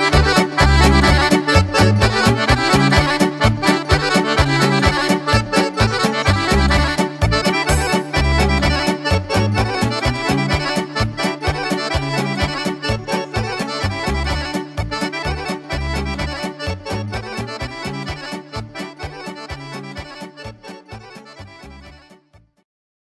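Chromatic button accordion playing a Serbian kolo dance tune over a pulsing bass accompaniment. The music fades out gradually and stops near the end.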